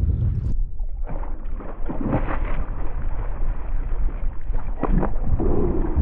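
Wind buffeting the microphone with a steady low rumble, with a few splashes from a hooked barracuda thrashing at the surface beside the kayak.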